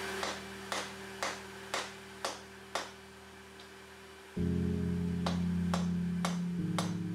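Instrumental guitar music with sustained low notes, over sharp hammer blows forging a red-hot 80CrV2 steel sword blade on an anvil. The blows come about two a second and stop for a couple of seconds midway.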